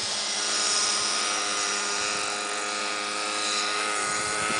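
Electric RC F6F Hellcat's 1000Kv brushless motor and 9-inch three-blade propeller whining steadily as the model flies overhead, the pitch easing down slightly.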